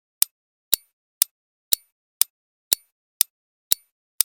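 Countdown-timer ticking sound effect: a steady clock tick, about two sharp ticks a second, counting down the answer time.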